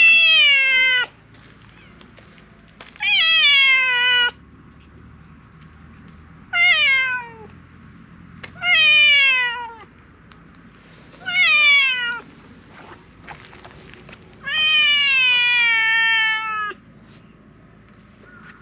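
Silver tabby cat meowing loudly and insistently, six long meows a couple of seconds apart, each sliding down in pitch at the end. The last one, about fifteen seconds in, is the longest.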